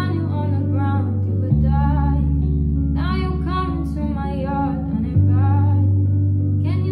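Background music: a song with a singing voice over deep sustained bass notes, which change pitch about one and a half seconds in and again about five seconds in.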